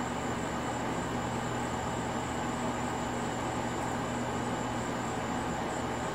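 Steady outdoor night background noise: a constant low hum and hiss with an even high-pitched drone over it, unchanging throughout.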